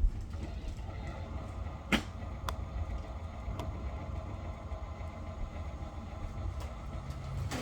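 Toy farm vehicles being pushed and handled: a steady low rolling rumble with a few sharp plastic clicks, the loudest about two seconds in.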